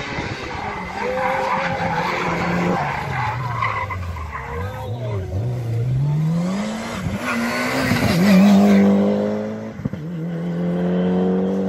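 A rally car's engine on a tarmac hill stage: its note falls as the car slows, then rises as it accelerates hard, loudest as it passes about eight and a half seconds in. After a brief dip, a gear change, it holds a steady high note as it pulls away.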